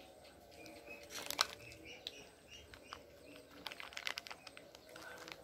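A person chewing a mouthful of rujak, with a few short clicks and scrapes of a metal spoon in a ceramic bowl, about a second in and again around four seconds in as another spoonful is taken.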